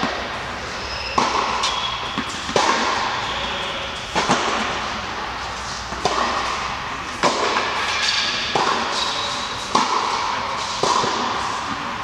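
Tennis balls struck back and forth with racquets in a steady rally, a sharp pock about every second or so, each hit echoing through a large indoor tennis hall.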